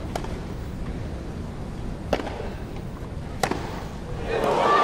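Tennis ball struck by racquets during a rally on a grass court: three sharp pops, the last two about a second and a half apart. Near the end the crowd breaks into loud cheering.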